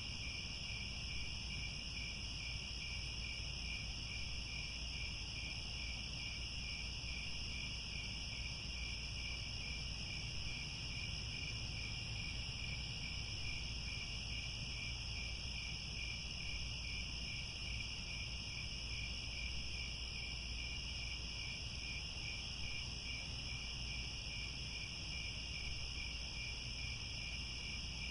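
Crickets chirping in a continuous, even chorus: a steady, high, finely pulsing trill in two pitch bands, with a steady low rumble underneath.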